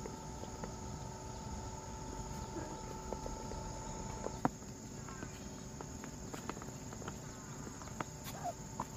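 Steady high drone of insects, with scattered soft clicks and patter from a flock of muscovy and white ducks pecking at moist bran in a feed tray.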